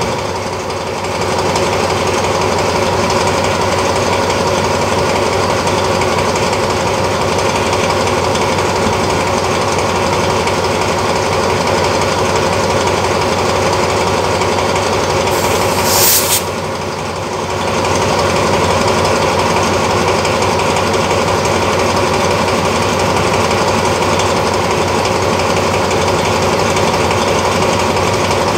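Diesel-electric locomotive 4212 idling at a standstill: a steady, loud, rattling engine note. About sixteen seconds in, a short burst of high hissing cuts in briefly over it.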